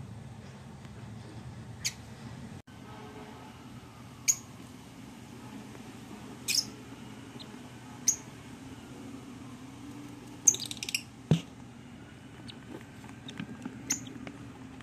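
Lovebird chicks in a nest box giving short, high squeaks every couple of seconds, with a quick cluster of them about ten seconds in, over a low steady hum.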